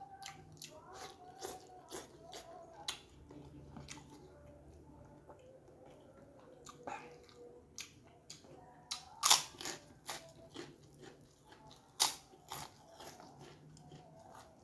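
Close-up eating sounds: chewing with small clicks, and two loud crisp crunches of a fried kerupuk cracker, about nine and twelve seconds in.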